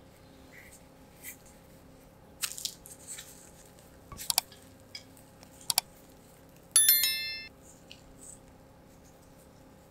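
Crisp, flaky crust of a pan-fried layered bread crackling and rustling as it is pulled apart by hand. Two sharp double mouse clicks come from a like-and-subscribe animation, followed about seven seconds in by a bright notification-bell chime, the loudest sound.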